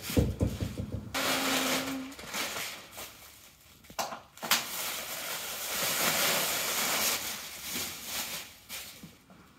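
Clear plastic stretch wrap being peeled off and crumpled: a crinkling rustle that comes and goes, loudest in the second half. A few thumps sound in the first second and two sharp clicks about four seconds in.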